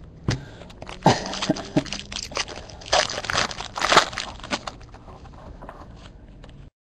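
Foil wrapper of a 2011 Bowman Chrome baseball card pack being torn open and crumpled by hand: a busy run of crackles and crinkles that fades after about five seconds to a softer rustle of cards being handled, then cuts off suddenly near the end.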